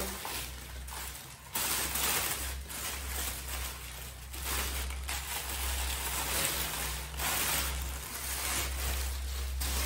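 Honeycomb kraft paper packing wrap and white packing paper rustling and crinkling as they are pulled out of a cardboard box and handled, in irregular surges that grow louder after the first second and a half.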